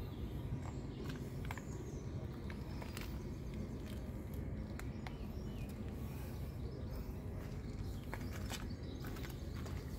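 Outdoor background noise: a steady low rumble, with scattered light clicks and footsteps as someone walks around the boat trailer.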